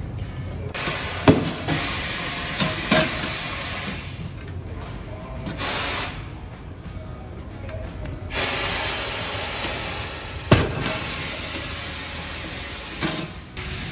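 Air hissing out of a motorcycle rear tire as it is deflated for removal from the rim, in two long rushes with a short burst between them. A sharp knock comes about a second in and another about ten seconds in.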